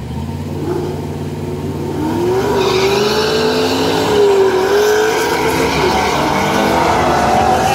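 Blue Ford Mustang and orange third-generation Pontiac Firebird drag racing. Their engines hold steady at the start line, then the cars launch about two seconds in, running at high revs with the pitch climbing, dipping at gear changes and climbing again as they pull away.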